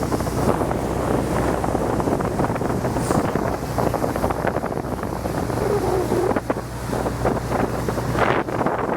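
Wind buffeting the microphone on a sailboat under way, with water rushing past the hull and a steady low hum underneath.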